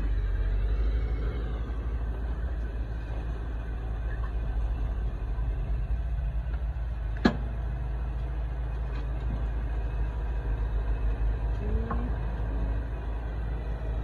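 A heavy vehicle's engine running steadily with a low rumble. A single sharp knock sounds about seven seconds in.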